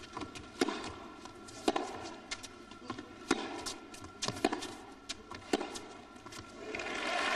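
Tennis rally: racquets striking the ball about once a second, with lighter ball bounces on the court between strokes. Near the end the crowd starts applauding as the point ends.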